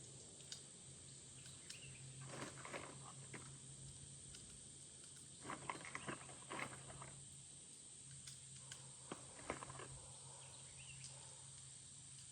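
Faint clicks of .22 LR cartridges being pressed into a Rossi rifle's 10-round magazine, in small clusters about two, six and nine seconds in, over a low steady hum and hiss.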